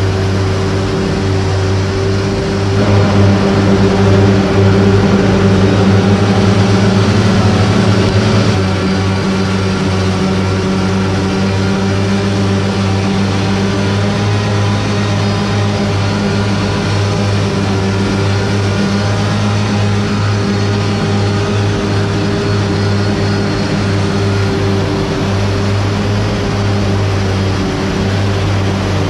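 Steady machinery hum: a constant engine-like drone with several fixed tones over a rushing noise, swelling a little louder for a few seconds near the start.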